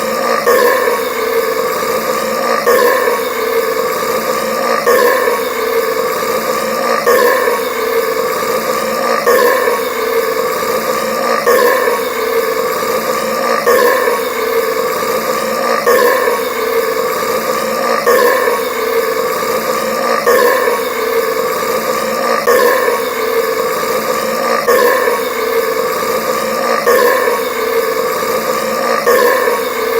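A man's loud, drawn-out soda burp, looped so that the same stretch repeats about every two seconds.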